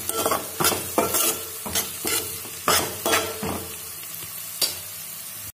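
Spatula stirring and scraping sliced onions, green chillies and whole spices in sizzling oil in a metal kadai, with turmeric just added. Irregular scrapes come about twice a second over the first three seconds or so, then thin out, leaving the steady sizzle of the frying onions.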